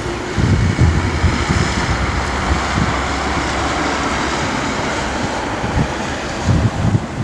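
Electric locomotive hauling a loaded freight train on approach, running steadily, with heavy wind buffeting on the microphone in gusts just after the start and again near the end.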